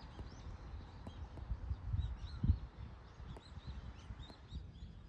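Small birds chirping, many short high calls repeating throughout, over a low rumble that swells to its loudest about two and a half seconds in.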